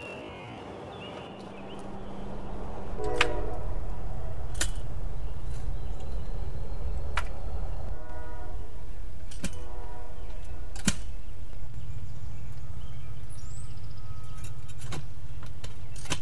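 Post hole digger working into dirt: sharp metal clanks every second or two, some with a brief ringing, over a steady low rumble that starts about two seconds in.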